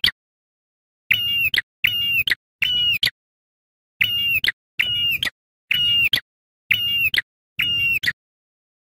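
Ashy tailorbird (prenjak) singing loudly: a series of short, identical whistled notes, each a high held tone that flicks down at the end. Three notes, a pause of about a second, then five more.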